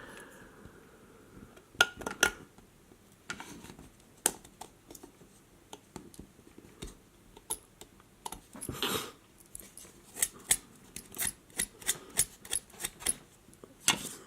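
Irregular small clicks and taps of hard plastic phone parts being handled and pressed, with a brief scrape about halfway through.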